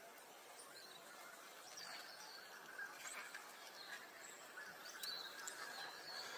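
Faint outdoor ambience with a few short, high bird chirps scattered through it.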